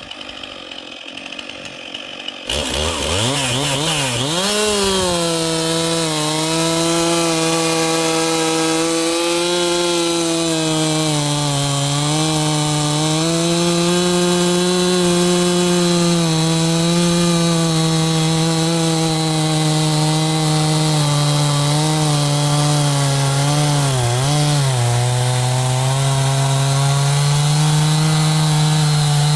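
Stihl MS362 two-stroke chainsaw. About two seconds in it revs up fast, then runs at high revs bucking English beech. The engine pitch sags and recovers as the chain bites, with a deeper bog near the end.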